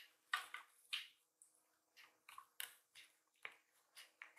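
Kitten's claws and paws on a sisal scratching post and sisal mat: an irregular run of soft, short scratches and clicks.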